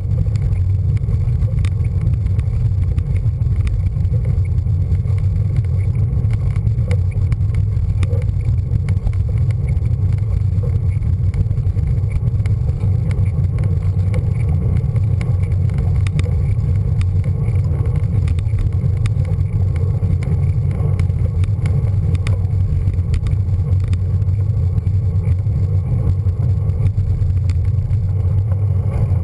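Steady heavy rumble of wind and road vibration on a handlebar-mounted camera on a moving road bike, with faint scattered clicks and rattles.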